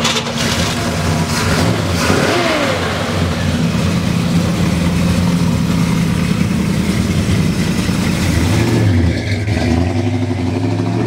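The 1967 Chevelle SS's rebuilt 396 cubic-inch big-block V8 running, with a brief rev about two seconds in. Near the end the sound changes as the car pulls away.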